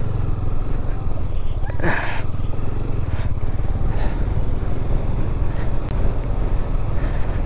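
KTM 390 motorcycle's single-cylinder engine running steadily under load while climbing a rough, stony dirt track. There is a brief louder noise about two seconds in.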